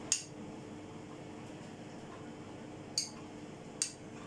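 Fork clicking against a small dish as tuna is scraped off it: three short, light clicks, one near the start and two close together near the end, over a faint steady hum.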